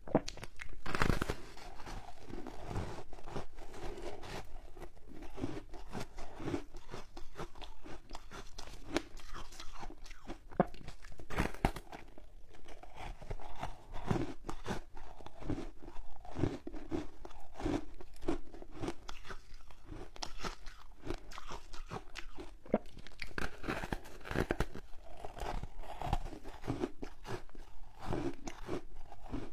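Close-miked biting and chewing of frozen foam ice: a loud crunching bite about a second in and another partway through, with a steady run of small crisp crunches as the mouthfuls are chewed.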